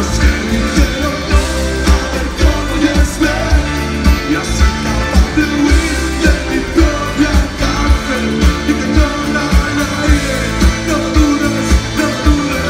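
Rock band playing a song with singing over a steady kick-drum beat.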